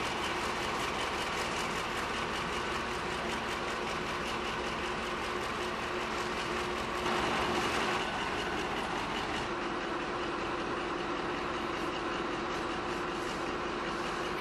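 Class 35 Hymek diesel-hydraulic locomotive's Maybach V16 diesel engine idling while the locomotive stands, a steady drone with a held hum. About seven seconds in it grows briefly louder for about a second.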